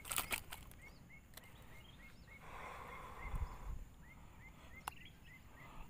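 A bird repeats a short rising chirp two or three times a second. Over it come a few sharp clicks near the start and a brief rustle with a low bump around halfway, from handling the freshly caught snakehead.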